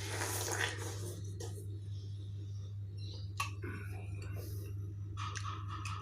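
Wet, juicy bites and chewing of fresh watermelon, with a few sharp clicks, over a steady low hum. A steady tone with fast ticking comes in about five seconds in.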